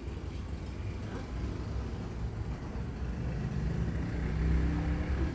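Low rumble of a passing motor vehicle engine, swelling a little in the last second or two.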